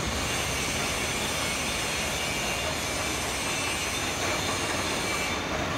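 Steady running noise of a 150-ton rubber moulding hydraulic press's power pack, its electric motor and hydraulic pump idling with a faint high whine over a low rumble.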